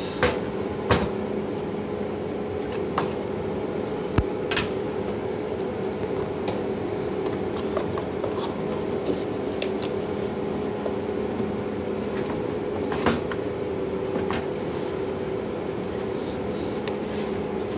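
Unpacking handling: scattered light knocks and taps as a metal-cased network switch, its power cable and foam packaging are moved about and set down on a table, over a steady background hum.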